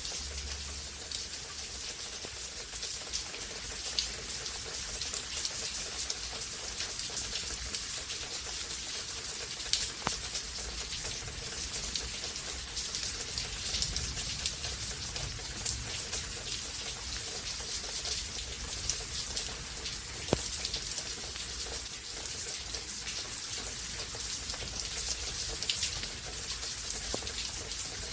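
Steady rain falling, an even hiss with the close, sharp taps of individual drops hitting a surface; a few drops land louder than the rest.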